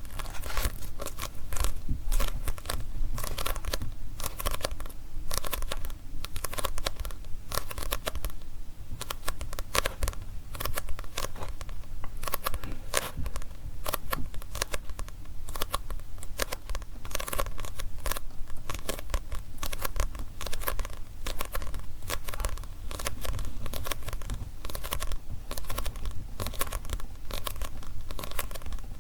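Fingers and nails tapping and scratching quickly on a manga book's cover and pages, recorded up close: a dense, uneven run of crisp papery taps.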